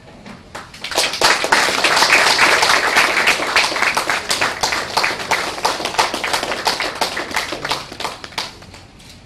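Audience applauding, starting about a second in, strongest early on and slowly dying down toward the end.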